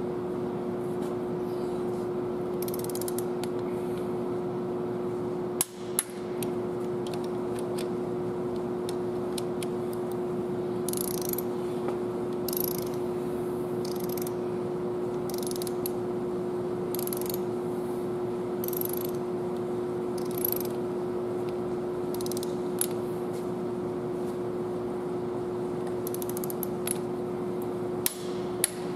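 Long torque wrench ratcheting in short strokes now and then while an injector hold-down screw is pulled down to torque, with a sharp knock about six seconds in and another near the end. A steady hum runs underneath throughout.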